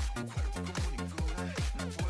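Background electronic music with a steady beat, a little over two beats a second.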